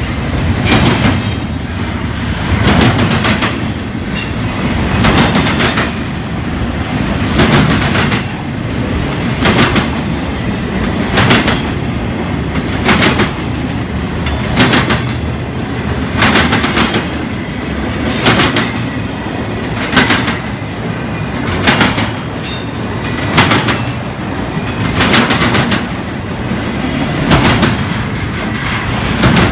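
Double-stack container well cars of a Union Pacific freight train rolling past close by: a steady low rumble of steel wheels on rail, broken by loud clacks of wheels over the track about every two seconds.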